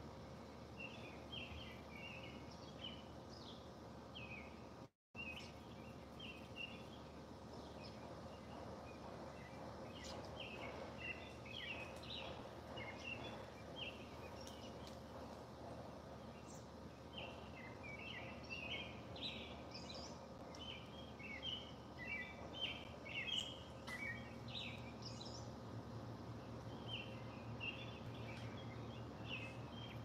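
Faint, rapid bird chirps in short runs, busiest in the middle and later part, over a steady low hum.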